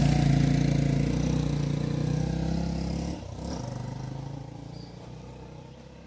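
A motor vehicle's engine running, loudest at the start, dropping off sharply about three seconds in and then fading away as it moves off.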